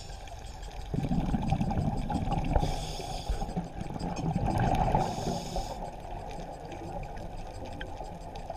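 Scuba diver's breathing through a regulator, heard underwater through the camera housing: exhaled bubbles gurgle and rush, swelling about a second in and dying down after about five seconds.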